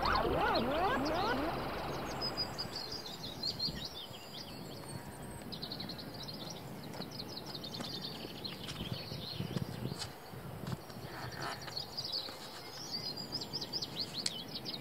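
Small birds singing in quick, high chirping phrases over steady outdoor noise, with a few faint knocks. A swooping, wavering tone fades out in the first second or so.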